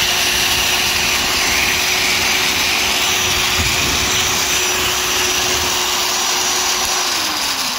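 Vintage Wolf Cabmaster 1/4" 250-watt electric drill running at full speed with its trigger locked on: a loud, steady motor whine. About seven seconds in the trigger lock is released and the motor winds down, its pitch falling.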